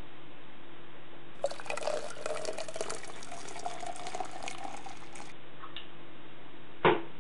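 Homemade beer poured from a plastic bottle into a tall beer glass, splashing for about four seconds, with a faint tone that slowly rises in pitch as the glass fills. A single short knock comes near the end.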